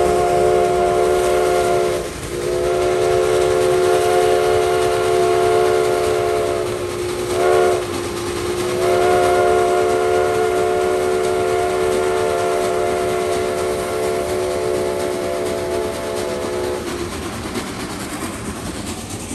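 Steam locomotive's chime whistle sounding a chord of several tones, loud, in three long blasts and one short one (long, long, short, long), the pattern of a grade-crossing signal. Steady running train noise sits underneath.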